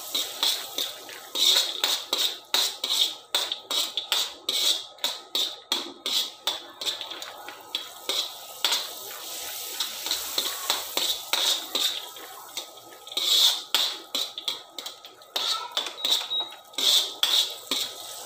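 A steel spoon scrapes and clinks against a metal kadhai (Indian wok) as chopped cashews and almonds are stirred, frying in butter and oil with a light sizzle underneath. The strokes come quick and close together for a few seconds, then more sparsely.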